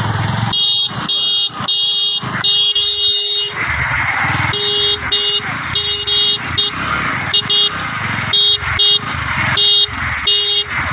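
A horn beeping over and over in short blasts of one steady pitch, irregularly spaced, with an engine running underneath.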